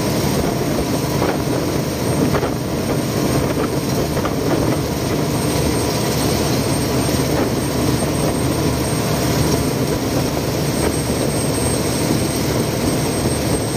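Khlong Saen Saep canal express boat under way at speed: its engine running steadily under the rush of churning water along the hull.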